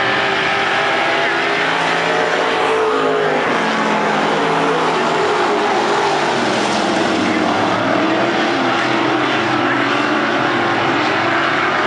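Several dirt-track Sportsman race car engines running together at racing speed as the pack laps the oval. Their pitches rise and fall as the cars go through the turns.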